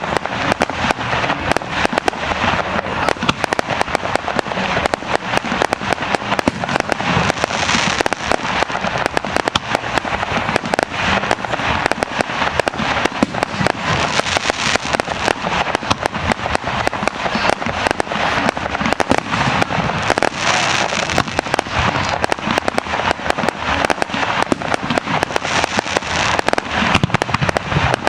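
Fireworks display: a fast, unbroken stream of bangs and crackles from shells bursting overhead.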